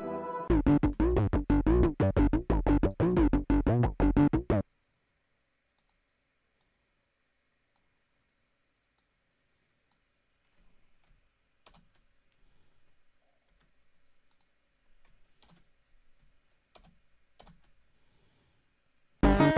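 Electronic synthesizer music played back from a digital audio workstation, a fast pulsing pattern that cuts off suddenly about four and a half seconds in. Near silence follows with faint scattered clicks, then the synthesizer starts again suddenly near the end.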